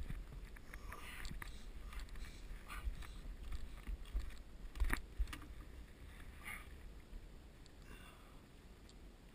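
A kayak bumping and scraping against a fallen log as it is pushed past a log jam by hand, with scattered knocks and rustles. The loudest knock comes about five seconds in, and it grows quieter after that.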